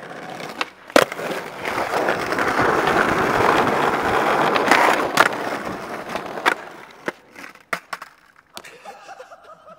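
Skateboard wheels rolling over paving slabs in a steady rumble, with sharp clacks of the board hitting the ground about a second in, twice around five seconds and once more as the roll ends. After that come a few lighter knocks and clatters.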